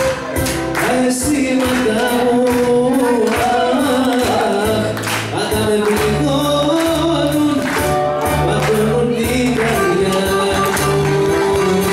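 Greek dance music with singing over a bass line and a steady beat.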